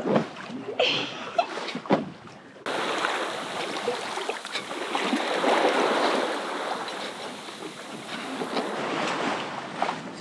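Sea water rushing along the hull of a sailboat under way offshore, with wind on the microphone. A few sharp knocks come in the first two seconds, then the steady rush of water and wind comes in suddenly about two and a half seconds in.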